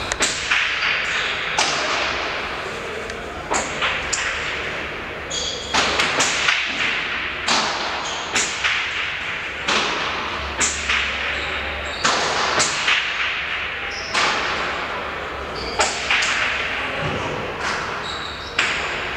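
Hard pelota ball in a remonte rally striking the walls and floor of a fronton court, a sharp crack about once a second, each followed by a long echo in the hall.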